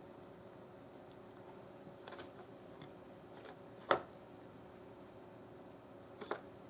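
Siamese cat biting and batting at an empty box: a few short scuffs and taps, the loudest about four seconds in and a quick double one near the end.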